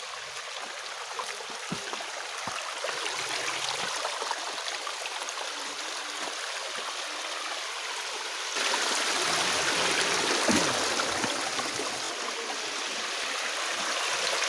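Rushing water of a small monsoon stream and waterfall, a steady rush that grows noticeably louder about two-thirds of the way through.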